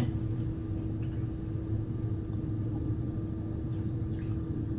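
Steady low background hum with a faint held tone running through it. A couple of faint light clicks of a fork on a plate come in along the way.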